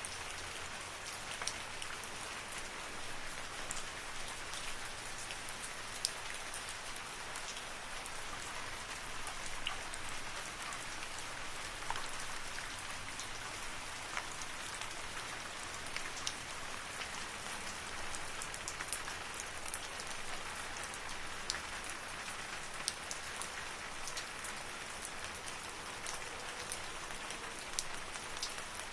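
Steady rain falling in a forest, an even hiss with scattered close drops ticking on surfaces.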